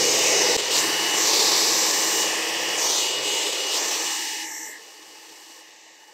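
Handheld hair dryer blowing steadily with a thin whine over the rush of air. It drops off sharply to a faint hiss about four and a half seconds in.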